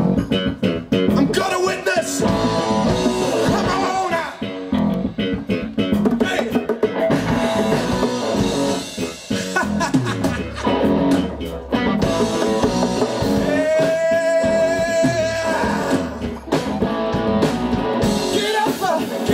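Live band playing: electric guitar, bass guitar and drums, with two singers' voices over them. A long held note stands out about two-thirds of the way through.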